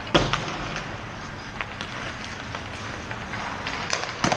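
Ice hockey practice in an indoor rink: skate blades scraping on the ice under sharp knocks of sticks and pucks, the loudest just after the start and another near the end.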